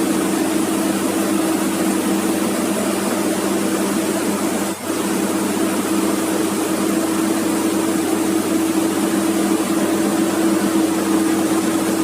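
Komatsu PC200-8 excavator's diesel engine running steadily, with a brief dip about five seconds in.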